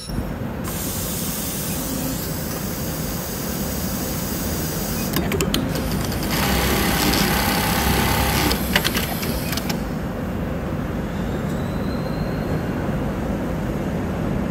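Hikari automatic elastic-band sewing machine running a test cycle: a steady machine hum with a hiss of air for most of the time, a few clicks about five seconds in, and about two seconds of fast stitching near the middle.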